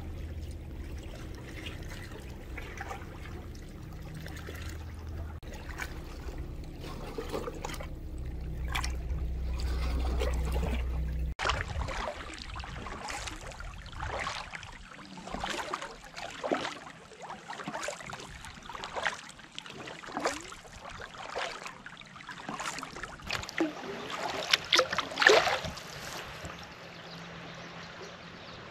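Kayak paddle strokes: water splashing and dripping off the blades about once every second or so, one stroke near the end louder than the rest. Before that, a steady low hum that cuts off abruptly about eleven seconds in.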